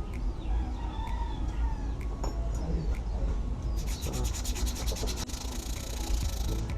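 Sandpaper rubbing on a scooter's drum brake shoe lining in rapid back-and-forth strokes, which grow loud and fast about four seconds in. The lining is being roughened so it grips the brake drum again.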